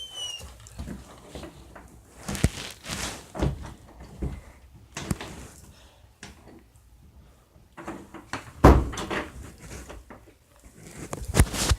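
A series of separate knocks and thumps, with the loudest about two-thirds of the way through and another near the end, and a short high squeak that falls in pitch right at the start.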